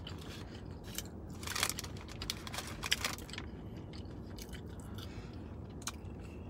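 Chewing and crunching of crispy fried food, with a few short crunches in the first three seconds, then quieter.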